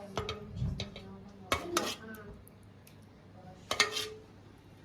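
Kitchenware clattering: a few sharp clinks of utensils against dishes or pots, in two clusters about a second and a half and nearly four seconds in, each with a brief ring.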